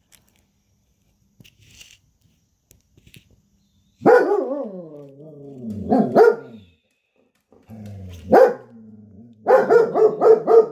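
Dog barking after a few quiet seconds: a long call falling in pitch about four seconds in, then single sharp barks, then a quick run of barks near the end.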